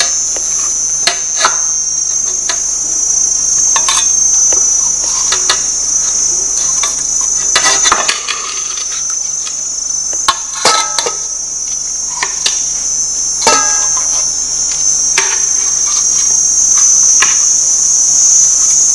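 A steady, high-pitched chirring of insects runs throughout. Over it come scattered light knocks and clinks as pieces of fish are laid onto a layer of sugarcane in a cooking pot.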